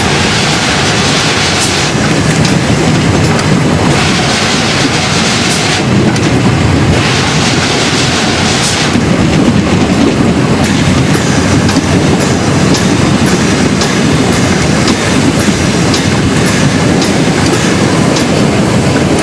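Metre-gauge Harz railway train rolling downhill, its wheels clattering steadily over the rail joints with a continuous rumble. Three times a louder hiss rises over the running noise for a second or two.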